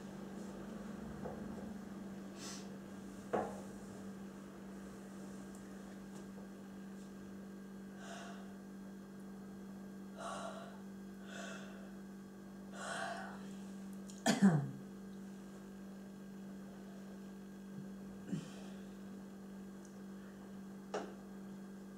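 Quiet room tone with a steady electrical hum, broken by a few soft breaths and small clicks from a person standing still. A short vocal sound with a falling pitch comes about two-thirds of the way through.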